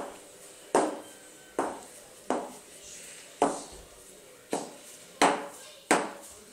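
An adult's ankle boot on a toddler's foot knocking on a ceramic tile floor as she walks, about eight hard heel strikes at an uneven pace of roughly one a second, each with a short ringing tail.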